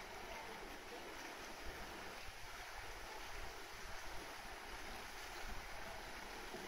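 Steady rush of water in a polar bear's pool, with low wind rumble on the microphone.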